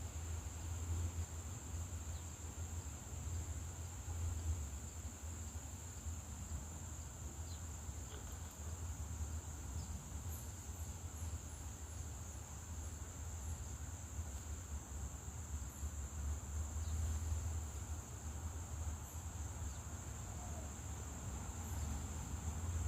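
Insects trilling in one steady, unbroken high-pitched chorus, over a low steady rumble. A short run of faint high chirps comes about ten seconds in.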